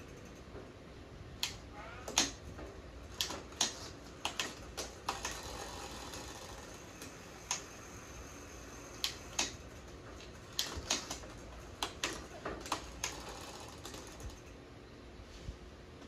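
Irregular sharp clicks and light metallic clinks, some with a faint high ring, in uneven clusters: hand work with tools and parts on a bicycle.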